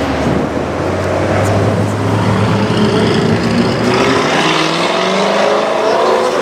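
Audi RS6 C7's twin-turbo V8 running through a Milltek aftermarket exhaust and accelerating, the engine note climbing in pitch over the last couple of seconds.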